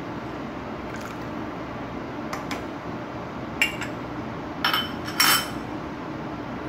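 Metal spoon stirring curry in a metal pot, clinking against the pot several times, with the loudest clanks in the second half.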